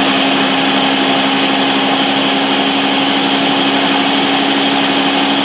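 Countertop blender running steadily at high speed, crushing ice into a frozen slush drink. The motor holds one constant pitch throughout.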